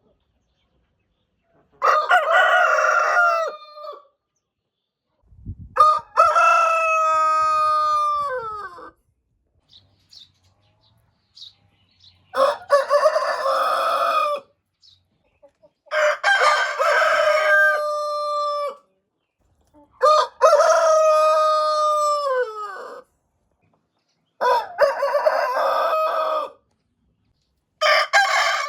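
Roosters crowing, about seven full cock-a-doodle-doo crows one after another, each two to three seconds long with a drawn-out falling end, separated by brief silences.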